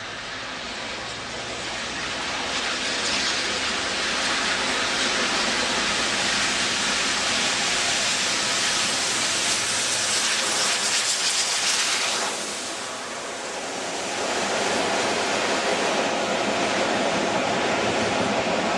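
A steam locomotive hauling a passenger train passes close by. The sound is a loud, steady rush of exhaust and wheels on rail that builds over the first few seconds. It eases about twelve seconds in, then picks up again as the coaches run past.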